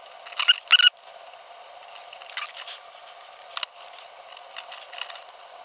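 Small tool-handling sounds at a circuit board: sharp light clicks and taps of pliers and a soldering iron against the board, with a couple of short squeaky sounds in the first second.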